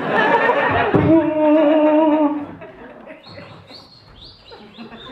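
A man's voice making comic sound effects: a held, slightly wavering hummed note lasting about a second, then, about three seconds in, a quick run of four or five short high rising squeaks.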